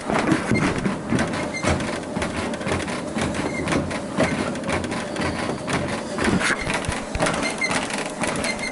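Treadmill running at a jogging pace: the belt and motor running with irregular thuds of feet landing on the deck.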